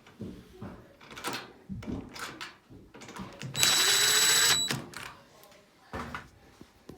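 A power drill driving a screw in one burst of about a second just past the middle, its pitch rising slightly, amid scattered clicks and knocks of panels and tools being handled.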